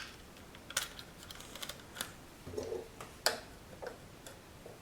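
Scattered sharp plastic clicks and light knocks, about five in four seconds, as a plug-in GSM remote power switch is handled and connected.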